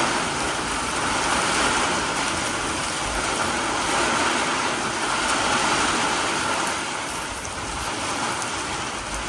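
Heavy wind-driven monsoon rain pouring down in a steady rush.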